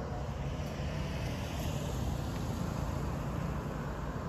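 Steady low vehicle rumble, with a car driving past close by near the end.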